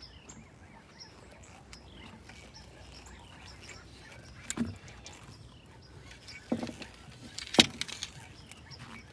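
Quiet outdoor background with small birds chirping, and a few sharp knocks or clicks about four and a half, six and a half and seven and a half seconds in, the last the loudest.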